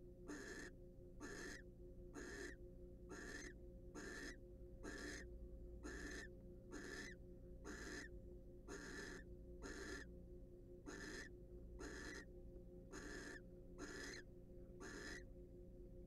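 Barn owl giving a steady series of short hissing snore calls, about two a second, over a faint steady hum.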